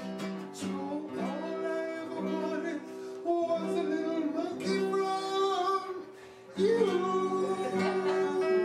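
A song: a man singing over strummed acoustic guitar, with a short lull about six seconds in.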